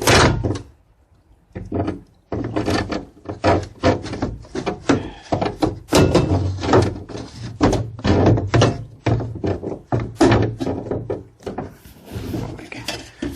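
Repeated knocks, clunks and rattles from the Ford E250 van's rear door handle mechanism as its metal and plastic parts are tugged and pried at, several hits a second after a brief pause at the start.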